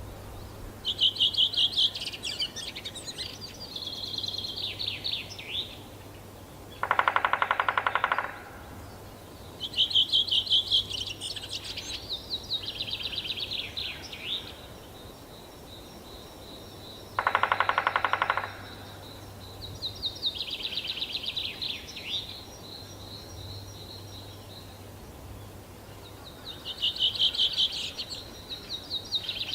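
Male Eurasian three-toed woodpecker drumming on a tree: two fast drum rolls about ten seconds apart, each lasting just over a second. Songbirds sing repeated trilled phrases around them.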